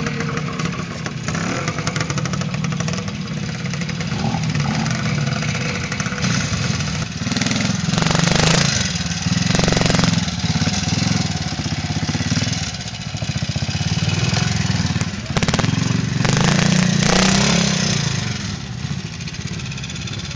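Classic trials motorcycle engine running at low revs over rocky ground, with several sharp throttle bursts in the middle and toward the end.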